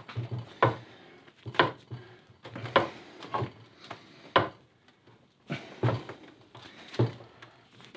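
Old cast-iron bench vise being handled and its handle bar worked: a string of irregular metal clunks and knocks, about one a second, with light rattling between them.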